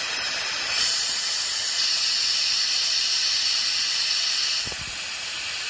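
Compressed air hissing steadily through a compressor-driven vacuum bleeder as its trigger is held, creating a vacuum on the bleed nipple to pull fluid through the line. The hiss grows louder about a second in and again shortly after, then eases slightly near the end.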